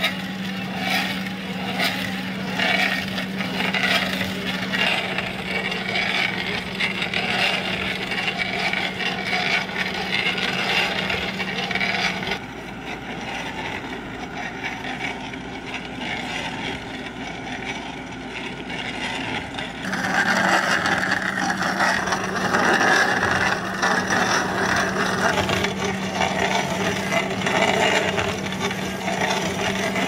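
Backhoe loader's engine running steadily under hydraulic load while a Dipperfox SC600 stump crusher attachment grinds, scrapes and cracks through a tree stump. The sound changes abruptly twice, and the last third is louder.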